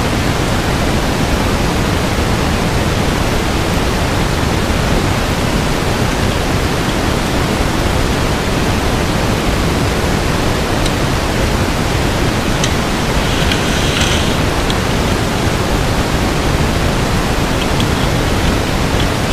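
Steady, loud rushing hiss with no change in level, and a few faint light clicks about two-thirds of the way through.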